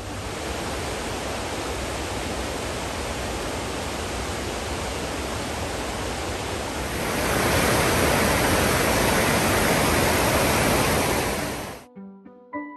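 Mountain stream rushing over boulders in a steady wash of white water, louder from about seven seconds in. Piano music comes back near the end.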